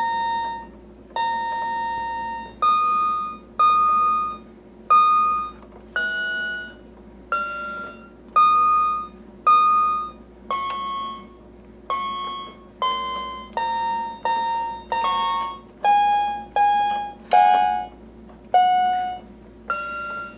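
Toy electronic keyboard played one key at a time: single steady beeping notes, about one a second, each dying away before the next, the pitch stepping up and down.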